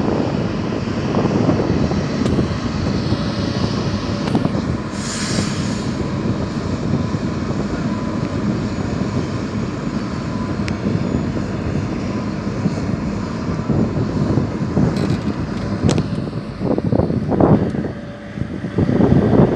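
Jet airliner's engines at takeoff thrust, a loud, steady rumble with a faint whine, as the plane rolls down the runway and climbs away.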